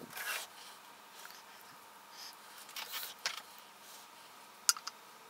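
Faint handling noises on a small air compressor's head: hands rubbing and scraping against the metal and plastic in short bursts, with one sharp click shortly before the end.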